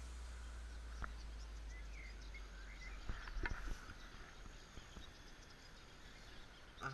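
Quiet lakeside ambience: a low steady rumble that slowly fades, faint bird chirps a couple of seconds in, and a few soft clicks.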